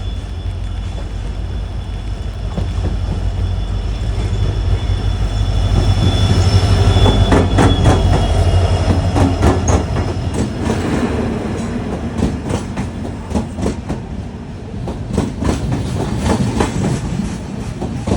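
Arriving WDP4D diesel-electric locomotive passing at low speed: its engine's deep hum swells to its loudest a third of the way in, then fades as the coaches follow, their wheels clicking steadily over the rail joints.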